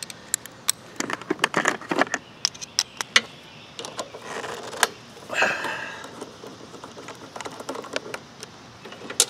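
Ratchet with a 10 mm socket on an extension clicking as it undoes a bolt on the mower engine's carburetor cover. The clicks come fast and uneven for the first few seconds, then sparser, with one sharper click near the end.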